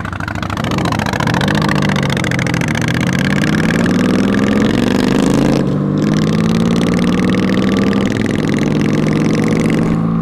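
Honda Magna V4 motorcycle engine pulling away from a stop, its pitch rising steadily, with a brief break for a gear change about five and a half seconds in, then running steadier under wind noise on the microphone.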